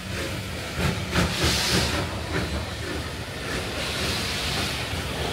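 Bulleid Battle of Britain class steam locomotive moving slowly along a station platform, tender first, with steam hissing and a low rumble from the wheels on the rails. A few sharp knocks and louder bursts of hiss come about a second in.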